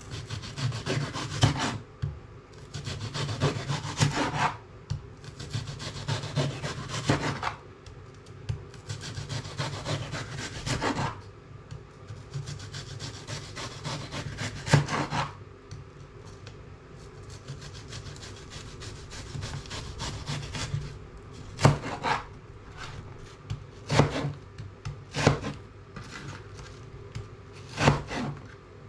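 Chef's knife slicing through a raw potato on a plastic chopping board: long sawing strokes of a second or two each through the first half, then single sharp knocks of the blade on the board every second or two.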